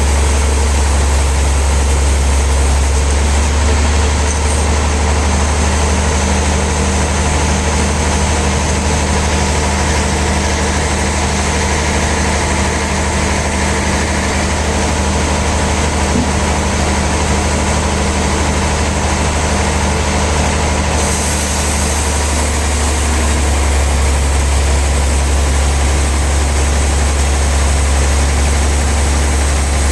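Sawmill machinery running steadily: a loud, unchanging low engine drone under a constant hiss.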